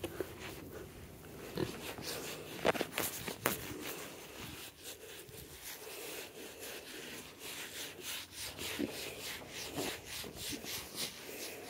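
Leather work glove rubbing and scratching the bristly coat of a kunekune pig, with scattered short, sharper scrapes, the strongest about three seconds in.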